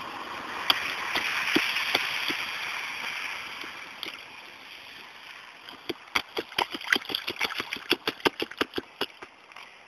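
Small rubber rain boots stamping and splashing in a shallow puddle on asphalt, a quick run of sharp slaps about five a second in the second half. Before that, a hiss swells and fades over the first few seconds.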